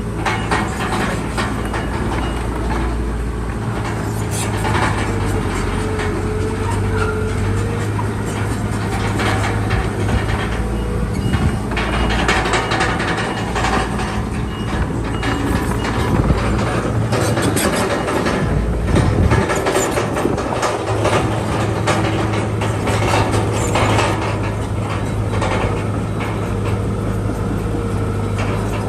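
Bulldozer diesel engine running steadily under the clanking and rattling of its steel tracks. For several seconds in the middle the engine note shifts and the clatter gets busier.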